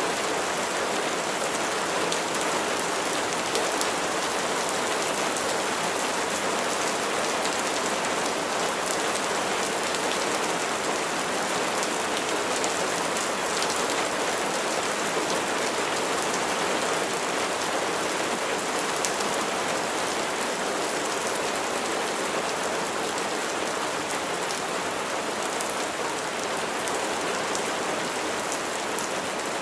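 Steady rain falling on a surface, an even hiss with the patter of many fine drops.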